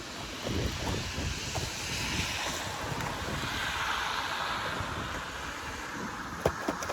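Wind buffeting the microphone in gusts over a steady rushing hiss, with a couple of sharp knocks near the end.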